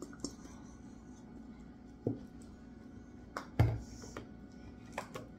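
Plastic ketchup squeeze bottle being squeezed out into a small bowl, with a couple of faint sputters from the nozzle. About three and a half seconds in there is a single knock as the bottle is stood upright on the counter.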